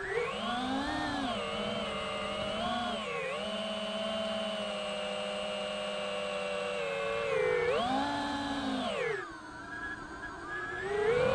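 iFlight DC5 FPV quadcopter's brushless motors whining, the pitch rising and falling with the throttle. It climbs just after the start, holds level with a short dip about three seconds in, surges about eight seconds in, then drops low for a second or so before rising again near the end.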